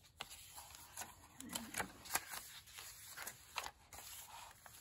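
Paper pages of a handmade junk journal being turned and handled by hand: a run of soft rustles and light taps, the loudest a little over two seconds in.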